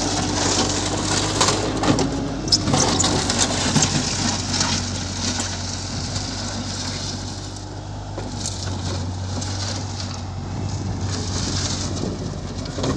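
Bobcat machine's engine running steadily, with crunching and cracking of material during the first five seconds or so that then eases off.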